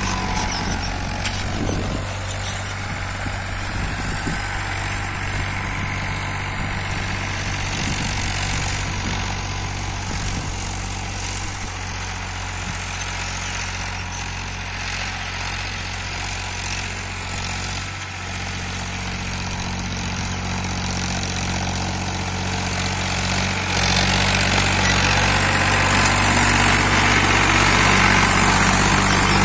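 Powertrac 434 DS Plus tractor's three-cylinder diesel engine running steadily under heavy load while it pulls a 16-disc harrow through dry soil. It grows louder for the last several seconds.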